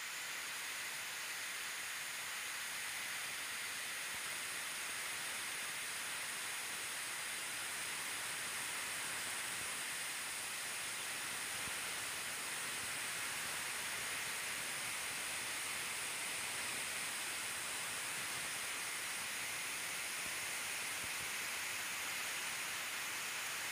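Steady high-pitched hiss that does not change, with no other sound: the recording's own noise.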